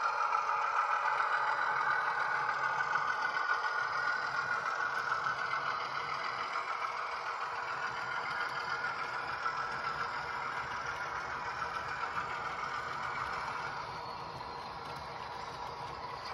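A model diesel locomotive's sound decoder playing a six-cylinder Alco diesel engine sound through its small speaker as it shunts, with the rattle of model wagons rolling over the track. The engine sound eases and gets a little quieter about fourteen seconds in.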